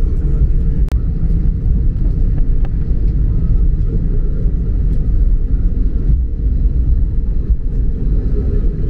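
Cabin noise of an Airbus A321neo taxiing: a steady low rumble from the engines and the aircraft rolling along the taxiway.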